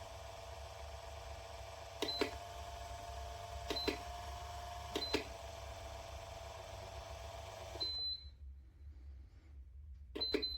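BEPER P206VEN600 electric wall fan running with a steady motor hum, beeping with a click at each control press, three times over several seconds. After a beep about eight seconds in, the hum stops as the fan switches off. Two more quick beeps come near the end.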